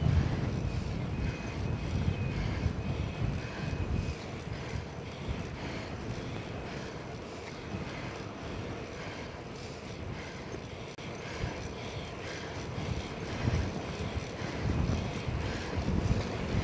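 Wind rushing over the microphone of a bicycle being ridden at speed, heard as a gusty low rumble that swells near the start and again near the end.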